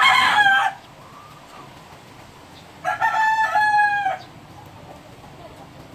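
Two rooster crows: one at the very start and another about three seconds in, each lasting about a second.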